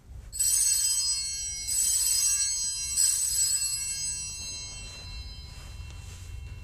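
Altar (sanctus) bells rung three times, each stroke ringing on and fading, the signal for the elevation of the consecrated chalice.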